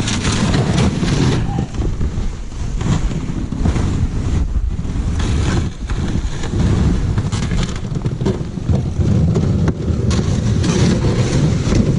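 Wind rumbling on the microphone outdoors, a steady low buffeting with irregular scuffs and knocks through it.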